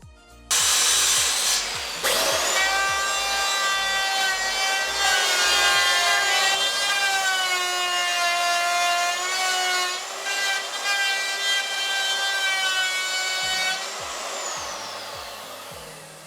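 Electric power saw cutting through a wooden panel. The motor's whine spins up about two seconds in, drops a little in pitch while the blade is in the wood, and winds down with a falling pitch near the end.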